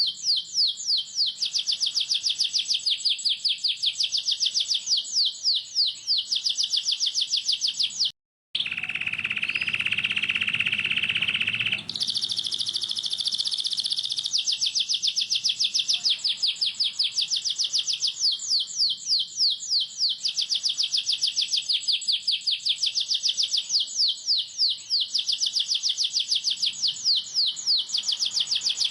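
Domestic canary singing a fast, tight rolling trill of rapidly repeated high notes. About eight seconds in the song cuts out for a moment and gives way to a few seconds of a lower, buzzy trill, then the rapid high rolls resume.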